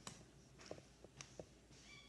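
Near silence with a few faint, scattered clicks and taps of hands handling slime and plastic, and a brief faint high squeak near the end.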